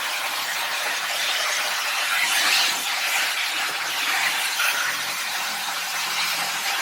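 Green chillies and spices sizzling in a pan of hot oil, with the tamarind water just poured in hissing as it boils off: a steady hiss.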